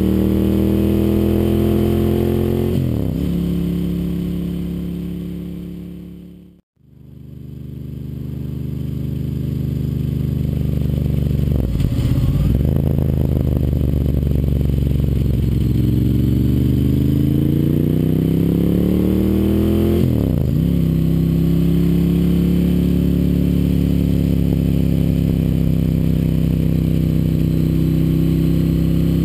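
Ducati Monster 1100 S's air-cooled V-twin through a Termignoni exhaust, heard from a camera mounted on the bike while riding. The engine note climbs under acceleration and drops at gear changes a few times. It fades out and back in once, about a quarter of the way in.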